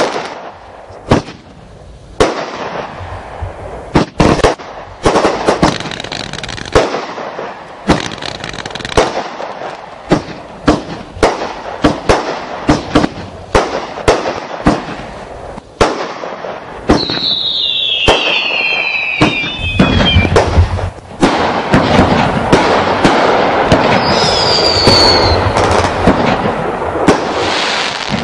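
Fireworks display: a rapid, irregular series of sharp bangs from bursting shells with crackling in between. In the second half the bursts come thicker and merge into a near-continuous loud crackle, and two brief whistles cut through, the first falling in pitch.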